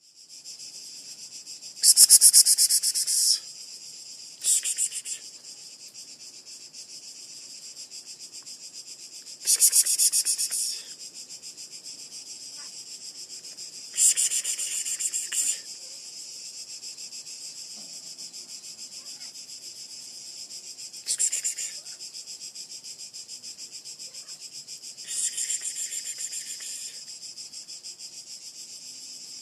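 Insects singing: a steady, rapidly pulsing high-pitched buzz throughout, swelling into louder bursts of a second or so about six times, every few seconds.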